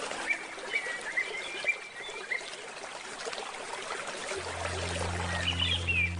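Steadily flowing river water with birds chirping in short calls through the first couple of seconds and again near the end. Low sustained music notes come back in at about four seconds.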